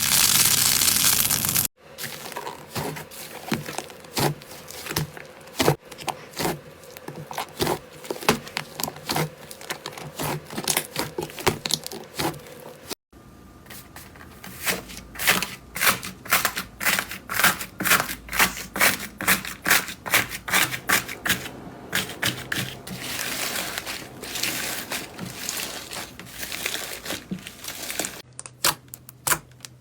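Slime being squeezed and worked by hand, giving quick sharp clicks, pops and crackles, in several short clips cut together. The first moment is a dense crunch that cuts off suddenly after about two seconds, and there are further abrupt changes near the middle and near the end.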